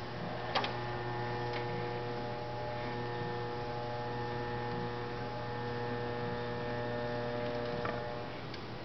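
DC motor driving a kinetic praying robot, fed from a 90 V DC power supply, running with a steady electric whine over a low hum. It starts with a click about half a second in and stops shortly before the end.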